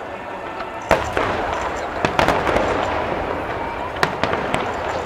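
Aerial fireworks shells bursting in a series of sharp bangs: the first and loudest about a second in, then clusters of bangs around two and four seconds in.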